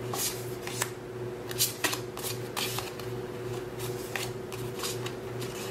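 Paper cards being handled and flipped through: a string of short, crisp rustles and flicks, irregularly spaced, over a steady low hum.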